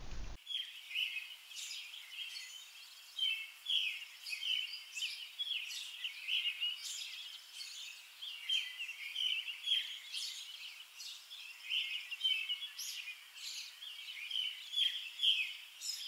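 Songbirds chirping and singing, a dense run of short, overlapping calls over a faint steady hiss.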